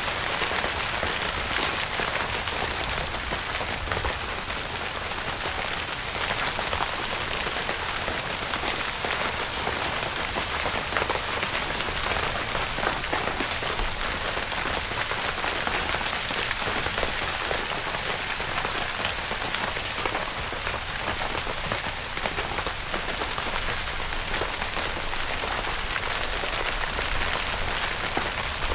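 Steady heavy rain drumming on a tent's fabric: a dense, even patter of drops.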